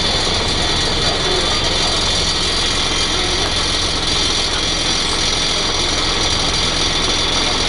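Scania L113CRL bus's diesel engine running, heard from inside the passenger saloon as a steady low drone with a hiss layered over it.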